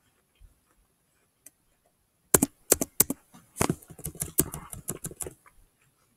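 Typing on a computer keyboard: a quick, uneven run of sharp key clicks starts a little over two seconds in and stops about three seconds later.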